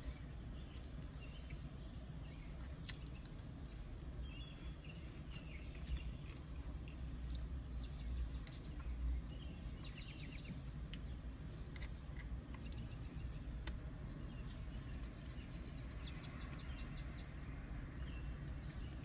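Birds chirping and trilling over a steady low rumble of outdoor background noise, with a few faint clicks.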